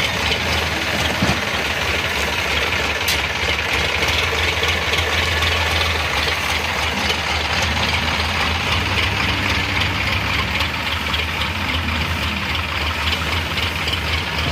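Heavy diesel engine running steadily at low revs, an even low hum with no revving.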